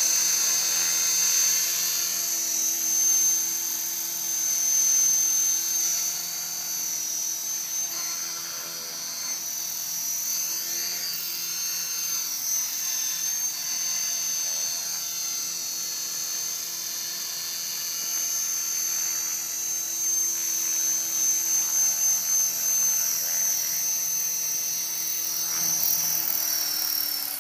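Align T-Rex 450 Pro electric RC helicopter hovering, a steady high-pitched motor whine over the buzz of the spinning rotors, swelling and fading as it moves. Near the end, after it touches down, the pitch falls as the rotor head slows.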